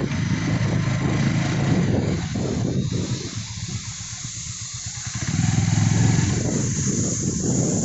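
Motorcycle engine running at road speed, with wind noise over the microphone. The engine note drops back about three seconds in and picks up again around five seconds.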